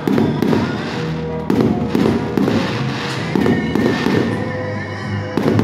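Aerial firework shells bursting in a series of booms, roughly one every one to two seconds, with crackling between them. Music plays alongside.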